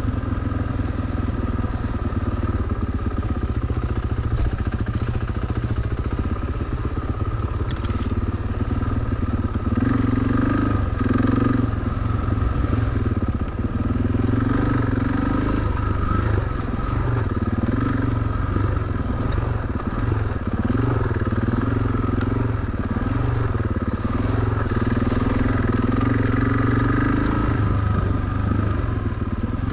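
Suzuki DR-Z400's single-cylinder four-stroke engine running under way on a dirt trail, its pitch rising and falling as the throttle is opened and closed.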